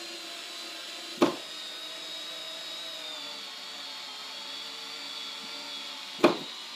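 Milwaukee M4 4-volt cordless screwdriver running steadily under load, driving a 3-inch screw into plywood. A sharp click comes about a second in and another near the end: the clutch kicking in as the screw seats.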